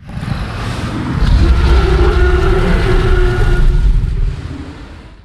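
Tyrannosaurus rex roar sound effect: one long, deep, rough roar that swells over the first second, holds, then fades away over the last second.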